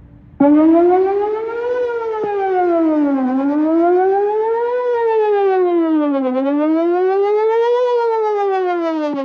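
Whelen WPS 4004 electronic outdoor warning siren sounding a test. It comes on suddenly about half a second in and wails, its pitch sweeping smoothly up and down about every three seconds.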